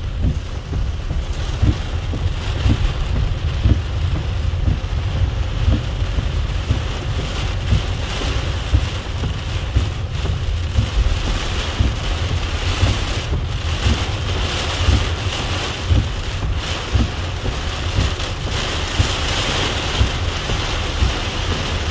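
Heavy rain drumming on a car's roof and windscreen, heard from inside the car: a dense, steady patter with a low rumble underneath.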